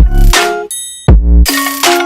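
Background music: an instrumental stretch of an electronic song with heavy deep bass-drum hits at the start and about a second in, synth chords between, and a short break with high bell-like notes just before the second hit.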